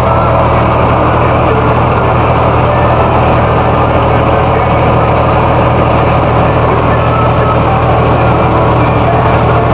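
A tractor engine running steadily under load, a loud, even drone with no change in speed.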